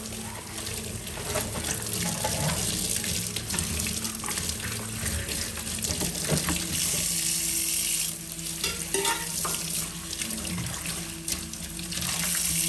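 Water running from a kitchen tap into the sink, a steady rush with a few scattered knocks and clinks.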